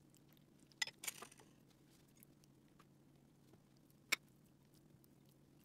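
Quiet serving sounds: utensils tapping ceramic bowls, with a few soft clicks about a second in and one sharp click around four seconds in, over a faint steady room hum.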